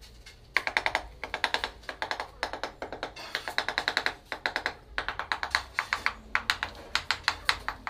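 Quick bursts of light, ringing taps, several a second, as the butt of a wooden hammer handle knocks a ceramic wall tile to bed it into the mortar. The tapping starts about half a second in.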